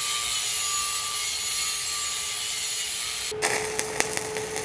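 Stick (SMAW) welding arc burning a 7018 electrode at about 90 amps while weaving a pass on pipe: a steady hiss that changes about three seconds in to an irregular crackle of sharp pops.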